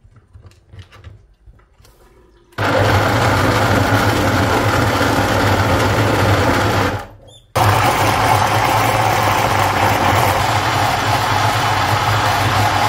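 Kenwood countertop blender grinding chopped fresh coconut into a liquid. After a couple of quiet seconds with light handling sounds, it starts abruptly and runs steadily with a low hum. It cuts out briefly about halfway, then starts again and runs on.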